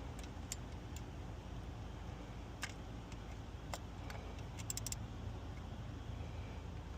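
Scattered light metallic clicks and taps from tools and parts being handled during hose removal, with a quick cluster of clicks a little before five seconds in, over a steady low rumble.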